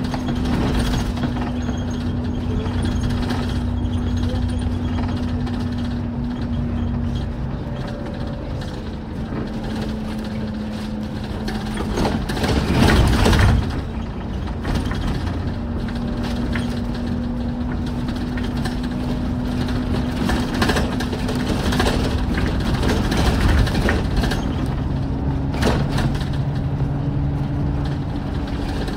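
Alexander Dennis Enviro400 MMC double-decker bus running along the road, heard from inside: a steady engine drone whose note steps down and back up a few times, with rattles from the body. A louder rushing burst comes about halfway through, and shorter ones near the end.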